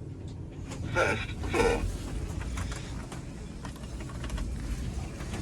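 Steady low rumble inside an Otis ReGen machine-room-less lift car, with scattered faint clicks and a short burst of voice about a second in.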